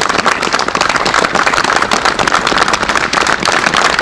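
Crowd applauding, with dense, steady clapping.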